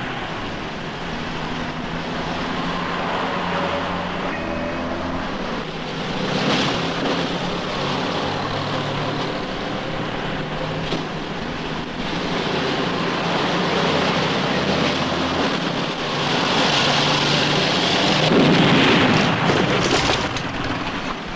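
Motor vehicle engine running with a low rumble whose pitch shifts in steps, growing louder over the last few seconds.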